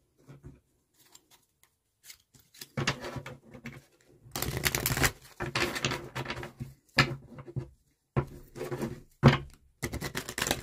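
A deck of tarot cards being shuffled by hand: bursts of rapid card clicks and rustling, starting about two seconds in, with a few single sharp snaps near the end.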